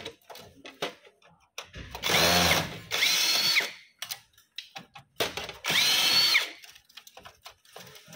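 ZHIDA cordless drill-driver backing out screws: three short runs, about two, three and five seconds in, its motor whine rising as it spins up and dropping as it stops. Small clicks of handling between the runs.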